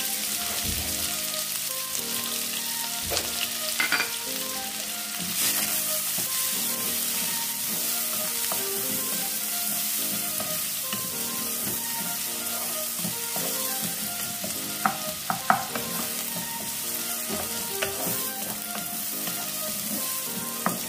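Chopped onions sizzling in hot ghee in a nonstick kadhai, stirred with a spatula, with a steady frying hiss. A few sharp knocks come about four seconds in and again around fifteen seconds in.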